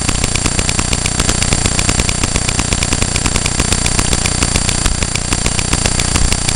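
Electrical buzzing from a fault inside the camera: a steady, rapid, evenly spaced ticking with thin high whines over it.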